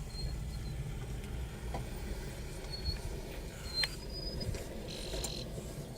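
Sleeping rhinoceros snoring: a low, steady rumble, with a few brief high chirps and a sharp tick over it.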